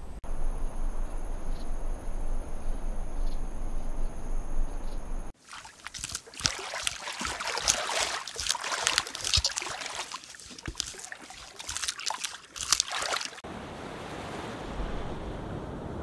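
Steady hiss, then from about five seconds in a stretch of close, irregular wet crackling and trickling as an American beaver chews a stick at the water's surface. Near the end this gives way to the even wash of surf on rocks.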